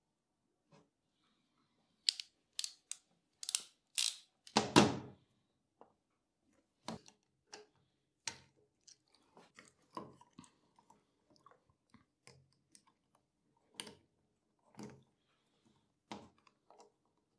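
Small clicks, crackles and scrapes of hand work on a three-phase power plug: wire ends handled and a screwdriver tightening the terminal screws. There is a quick run of sharp clicks about two to five seconds in, ending in one louder knock.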